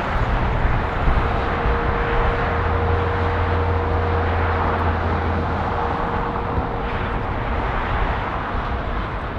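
Four-engine Boeing 747's jet engines on landing approach: a steady rush of jet noise with a thin steady whine running through it.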